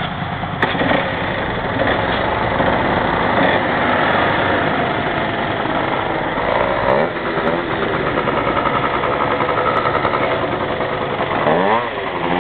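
Two-stroke motorcycle engine running, with a sharp click about half a second in and two quick revs, rising and falling in pitch, around the middle and near the end.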